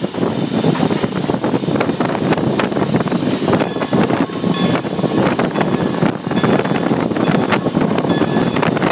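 Cab sound of a moving steam locomotive, New Hope & Ivyland #40, a Baldwin 2-6-2: a loud, steady rumble of the running engine and wheels on the rails, broken by irregular knocks and rattles, with some wind on the microphone.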